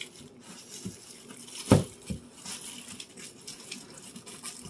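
Plastic kitchen trash bag rustling and crinkling as it is wrapped over the rim of a tall kitchen trash can, with a single sharp thump about a second and a half in.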